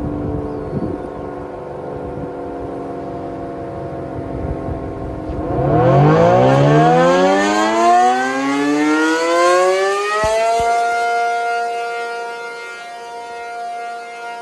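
ACA P-50 Penetrator tornado siren winding up. After steady tones over a low rumble, its pitch climbs steeply about five seconds in, then levels off into a steady wail that swells and fades in loudness.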